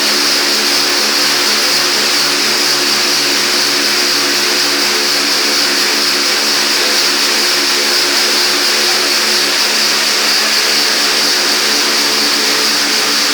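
Touchless car wash machine running: a steady, loud hiss of high-pressure water jets spraying over the even hum of its pump motor.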